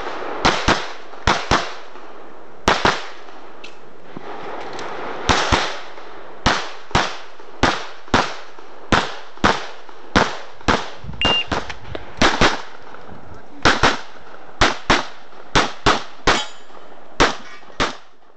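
Rapid pistol fire from a CZ 75 SP-01 Shadow: some thirty shots, mostly in quick pairs about a third of a second apart, each with a short echo. The sound fades out near the end.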